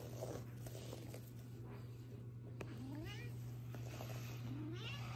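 A domestic cat giving two short, rising meows while playing with a feather wand toy, one about three seconds in and another about a second and a half later, over a steady low hum.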